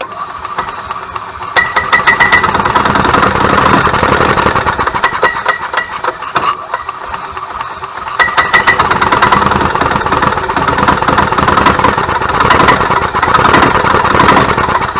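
1998 Club Car DS golf cart's single-cylinder gas engine starting and misfiring, popping and skipping as it surges up several times, trying to pick up and run but failing to. The skip is an ignition-side fault such as the ignition coil, RPM limit box or micro switches.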